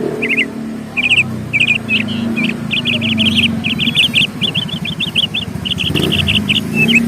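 Small birds chirping: quick runs of short, high chirps that come thickest in the middle, over a steady low rumble like a vehicle engine that swells briefly near the end.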